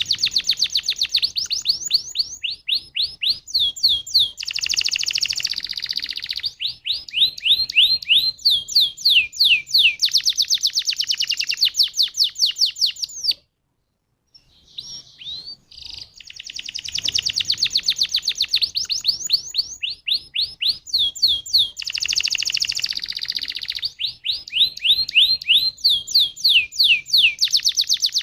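Domestic canary singing a fast trilled song: runs of rapidly repeated notes, some sweeping down in pitch. It breaks off for about a second midway, then the same sequence of trills starts again. It is a canary lure song (pancingan), meant to prompt other canaries to sing.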